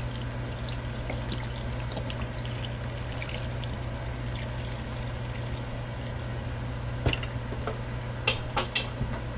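Chicken broth pouring from a carton's spout onto lobster shells in a stainless steel stockpot, a steady trickle of liquid. A few sharp knocks near the end.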